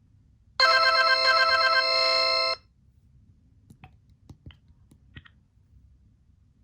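Motorola RAZR V8 mobile phone playing a polyphonic ringtone through its speaker for about two seconds, a chord of held notes under a quick repeating figure, then cutting off abruptly. A few faint clicks follow.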